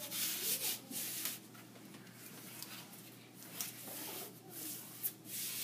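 A hand smoothing an adhesive vinyl backsplash panel flat against a wall, making irregular soft rubbing swipes.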